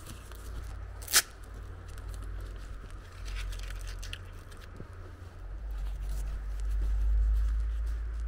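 Low rumble of wind buffeting the camera microphone, swelling near the end, with scattered light ticks and one sharp click about a second in.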